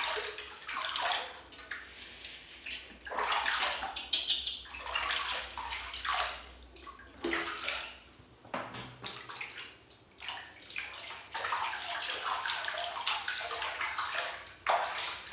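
Water splashing and sloshing in a steel basin as a hand scoops it over a baby monkey being bathed, in irregular splashes.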